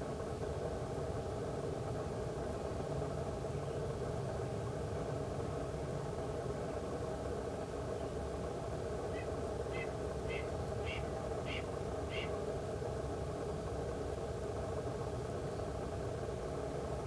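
A red-tailed hawk gives a run of six short, high calls, about two a second, some nine seconds in. Under it is a steady low background rumble.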